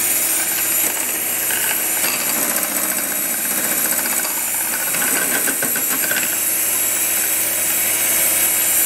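Electric hand mixer running steadily, its beaters whipping egg yolks and xylitol in a glass bowl until the mixture is pale and fluffy.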